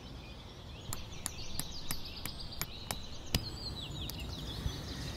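Outdoor summer ambience with small birds chirping and twittering over a steady background hiss. A run of sharp clicks, about three a second, comes through the first three seconds or so.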